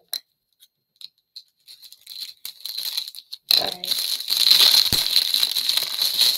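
Clear plastic wrapping crinkling as hands peel it open and pull a cube mat out. There are a few small clicks at first, then steady crinkling that builds from about two seconds in and is loud from about halfway, with a soft thump about five seconds in.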